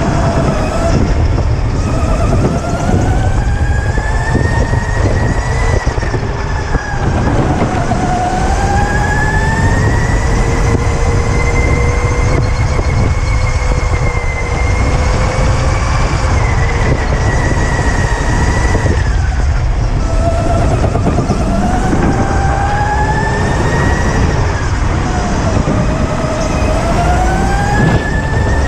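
Electric go-kart motor whining under a heavy, steady low rumble, the whine's pitch rising as the kart speeds up and falling as it slows, several times over.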